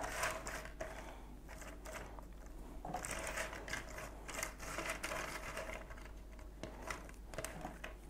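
Cardboard jigsaw puzzle pieces being sifted and shuffled by hand in a tray: an irregular run of small clicks and rustles.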